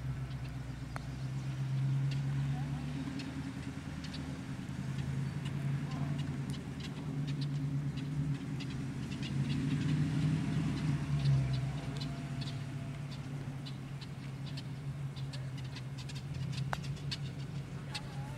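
A low, steady engine hum that swells and eases a little in level, with faint scattered ticks above it.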